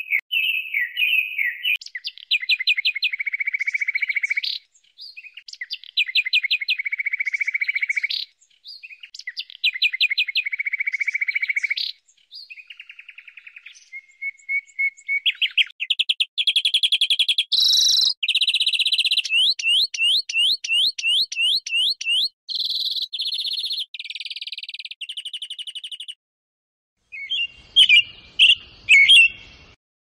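Recorded birdsong played in turn: a northern mockingbird singing, repeating the same phrase of rapid notes ending in a buzzy note three times, then from about halfway a European greenfinch's fast trills and wheezy notes. Near the end a different bird calls.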